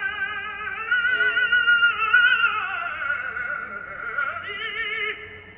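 Music played back through the installation's CD player: a high melody held on long notes with heavy vibrato, sliding slowly down in pitch partway through and fading near the end.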